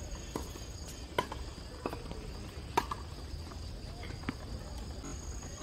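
Tennis balls struck by rackets and bouncing on a hard court during a doubles rally: a handful of sharp pops spaced roughly a second apart, the loudest nearly three seconds in. Steady high insect buzzing runs underneath.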